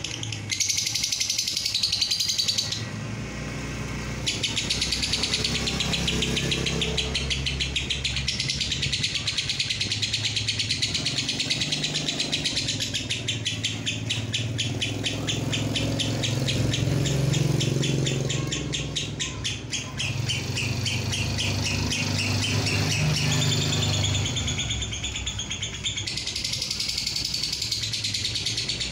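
Fischer's lovebird 'ngekek': a long, rapid chattering trill of high repeated notes, broken briefly about three seconds in, over a low steady hum.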